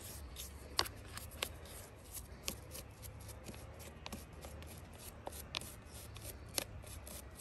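A hand brush scrubbing oily, caked-on dirt off a chainsaw, an irregular run of short scratchy strokes and light clicks, over a low steady hum.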